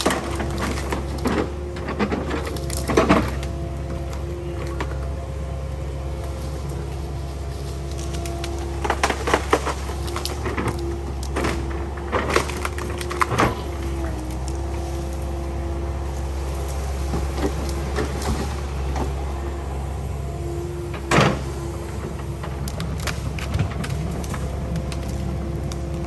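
Kubota KX080 excavator running with a steady hum while logs knock and crack against each other as they are grabbed and moved: a dozen or so sharp knocks, clustered around the middle and again once near the end.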